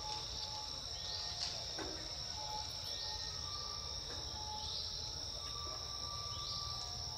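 Insects droning steadily at a high pitch, with a short rising chirp repeating every second and a half to two seconds.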